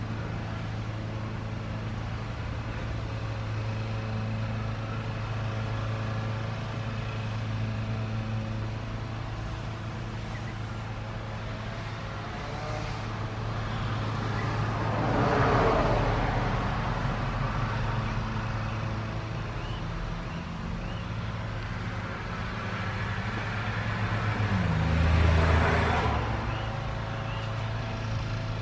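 Two road vehicles passing one after the other, each a rush of tyre and engine noise that builds and fades, the second with a low rumble near the end. A steady low hum runs underneath.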